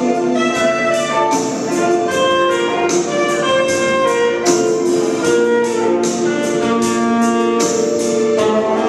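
Saxophone playing a melody of held notes over a backing track with a steady, regular beat.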